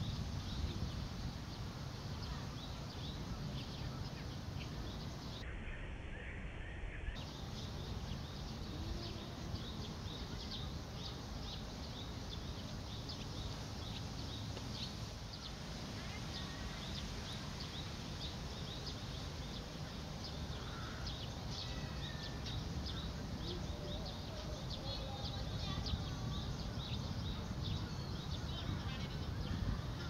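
Outdoor ambience: a steady low rumble with many small bird chirps and calls over it, and a few short trills.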